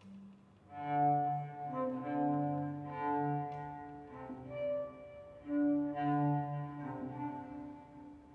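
Slow music played on a low bowed string instrument, long held notes following one another in phrases.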